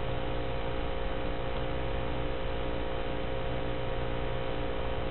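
Steady electrical hum and hiss, several fixed tones over an even noise floor: the background noise of the FPV goggles' DVR audio recording, with no motors running.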